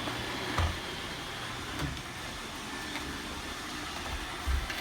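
iRobot Roomba 880 robot vacuum running, a steady motor and brush hum, with a low knock about half a second in and another near the end.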